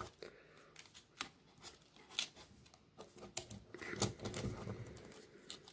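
Plastic parts of a Transformers Studio Series Offroad Bumblebee figure clicking as they are unclipped and folded by hand: scattered small sharp clicks, with some soft handling rustle a little past the middle.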